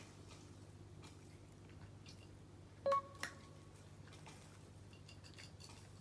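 Cat eating dry kibble from a dish: faint crunching, with one sharp ringing clink against the dish about three seconds in and a smaller click just after.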